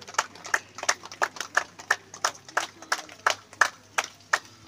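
A crowd clapping in unison in a steady rhythm, about three claps a second.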